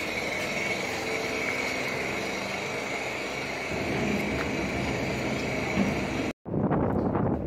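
Steady engine running in the background, a continuous mechanical hum with a thin high whine over it. About six seconds in the sound cuts out abruptly for a moment, then comes back as rough wind buffeting the microphone.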